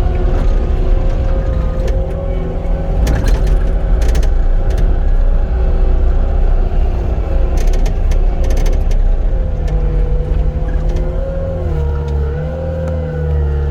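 Cat 259D compact track loader's diesel engine running under working load with a steady whine, and a few sharp metallic clanks from the machine as it works dirt.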